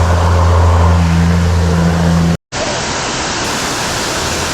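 Steady rush of water pouring over a creek spillway, with a steady low hum beneath it in the first half. The sound drops out briefly at a cut just past halfway, then the water rush carries on alone.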